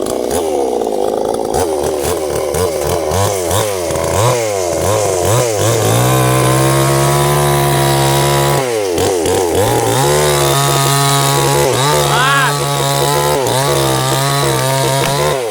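Stihl two-stroke chainsaw cutting sengon wood: the engine revs up and down repeatedly for the first few seconds, then runs at steady high revs through the cut, dips briefly about halfway, and holds high again until it drops off at the end.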